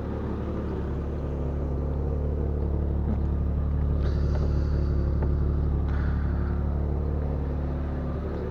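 1999 Jeep Cherokee XJ engine idling steadily, a low even hum, with two brief knocks or clatters about four and six seconds in.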